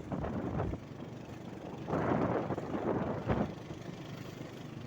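Motorcycle riding along with its engine running, and wind buffeting the microphone in gusts.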